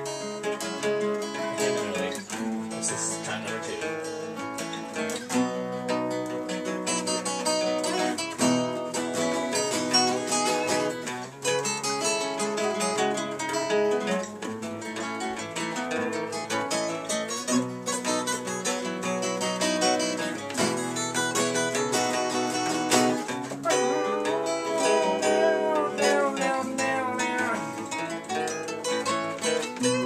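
Several acoustic guitars playing a song together, strummed and picked, in a passage without singing.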